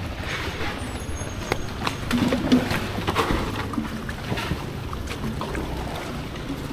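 Noise of a crowd of marathon runners at a drink station: scattered footsteps and clatter, a faint voice about two seconds in, and rustling close to the microphone.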